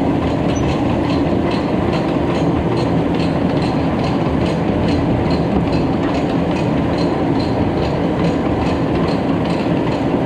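Farm tractor engine running steadily while hauling a spreader, with a regular clacking about three times a second.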